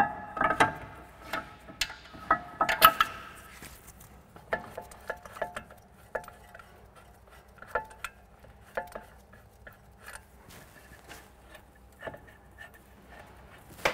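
Irregular metallic clinks and knocks as the aluminium brake caliper and its bolts are handled and fitted onto the hub, some clinks ringing briefly. The loudest clinks come in the first three seconds, then fewer and fainter ones follow.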